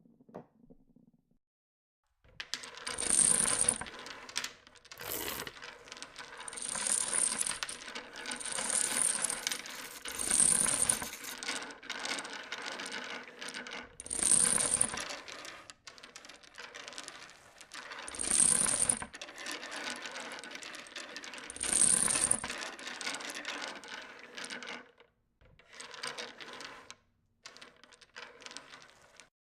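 Marbles rolling and clattering down a marble run: a continuous rattle with louder clacks every few seconds, starting about two seconds in and thinning out into shorter, quieter runs near the end.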